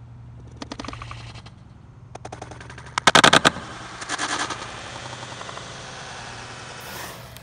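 Skateboard on concrete during a power kickflip off a hubba: rapid clattering of wheels and board, then the loudest sound, a burst of sharp cracks about three seconds in as the board lands into the bank. After that the urethane wheels roll steadily on the concrete.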